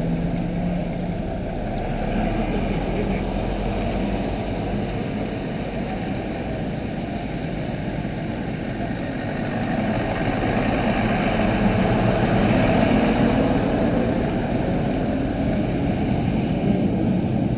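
Diesel engines of articulated flatbed lorries running at low speed as they pull slowly along the road, a steady heavy engine noise that grows louder about ten seconds in.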